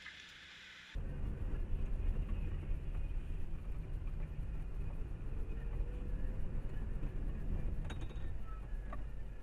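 Low rumble of a car's engine and road noise heard inside the cabin by a dashcam, starting suddenly about a second in, with a few faint clicks near the end.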